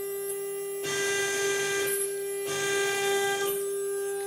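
Small desktop CNC router (Jcut-3030) with its spindle running at a steady whine. Twice, for about a second each, the axis is jogged and a rougher cutting noise rises over it as the bit cuts through the board.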